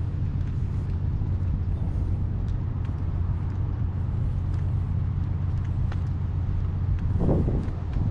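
Steady low engine rumble, with a brief louder swell about seven seconds in.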